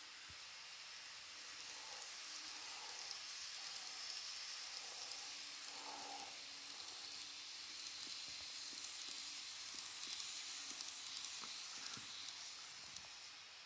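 KATO N-gauge model of the JR 381 series 'Yuttari Yakumo' express running past at close range: a soft hiss of metal wheels on the track with a faint motor hum and light clicks at the rail joints. The hiss swells as the cars pass and eases off near the end.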